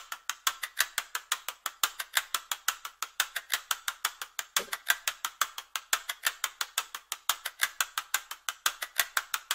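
Rapid, evenly spaced mechanical clicking, about six clicks a second, with one short low sound about halfway through.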